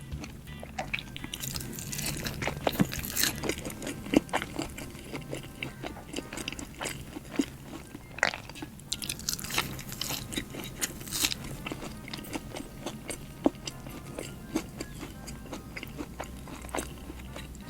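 Close-miked ASMR eating: repeated biting and chewing with crisp crunches, some louder than others.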